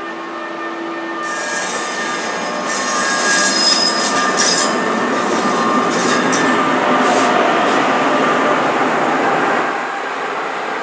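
NJ Transit MultiLevel commuter coaches rolling past on the rails, wheels squealing and screeching high from about a second in. The ALP-46A electric locomotive pushing at the rear passes near the end, and the noise drops off just after it.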